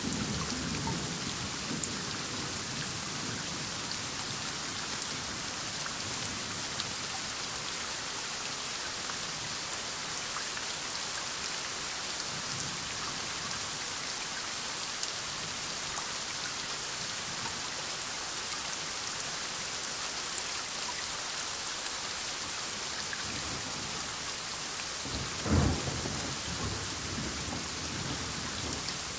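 Heavy rain falling steadily, with thunder: a low rumble dying away at the start and a sharp, loud thunderclap near the end.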